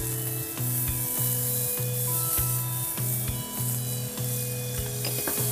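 Butter sizzling as it melts in a hot nonstick frying pan, over background music.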